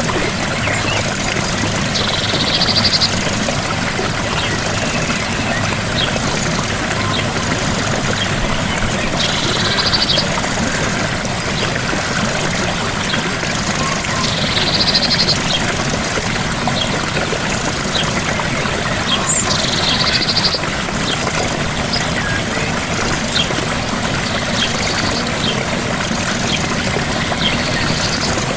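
Gentle waterfall: a steady rush of falling water. A short buzzy call, about a second long, sounds over it four times, roughly five seconds apart.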